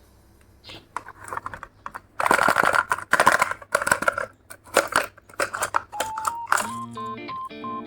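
Irregular clicks and rustling from toy-car packaging and diecast cars being handled. About six seconds in, light background music with a melody starts.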